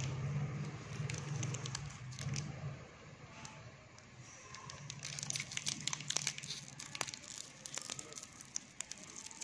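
Plastic Mentos candy wrapper crinkling and crackling in the hand, with sharp crackles through the second half. A low steady hum sounds underneath in the first part.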